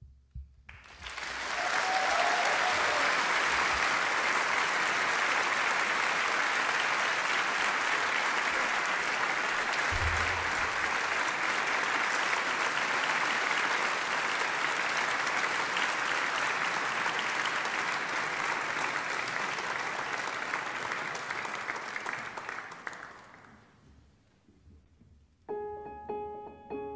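Concert audience applauding, starting about a second in and dying away after about twenty seconds; near the end a piano begins playing.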